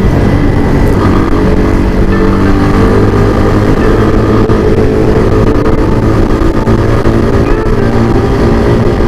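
Motorcycle engine running steadily while riding along the road, its note shifting a little in pitch.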